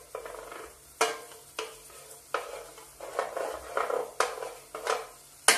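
Wooden spatula stirring and scraping in a coated frying pan, knocking against the pan at irregular intervals, with a sharper knock near the end and a faint sizzle of food frying in oil underneath.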